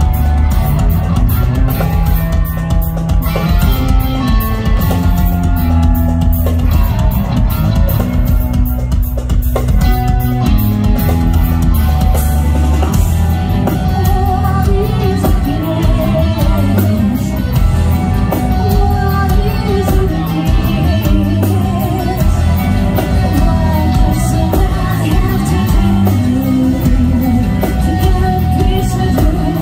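Metal band playing live through a PA, with heavy bass, guitar and drums. A female vocalist comes in singing about halfway through.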